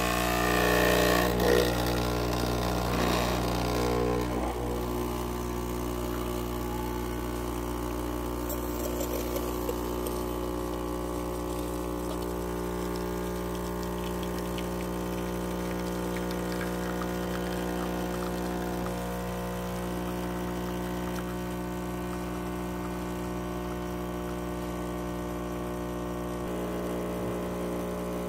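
Home espresso machine's electric pump humming steadily while pushing water through the coffee to brew a shot; louder and rougher for the first few seconds, then settling into an even hum.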